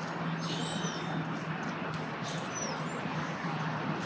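Outdoor background noise with a steady low hum and a few short, high chirps, twice in close pairs.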